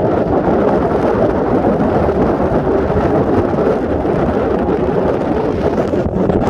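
Steady, loud rushing of wind buffeting the microphone.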